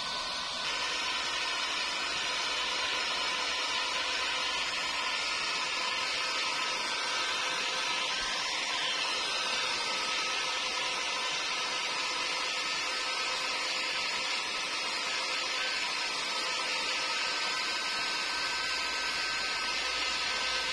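Steady whirr and hiss of a small electric blower motor running without a break, stepping up slightly about a second in.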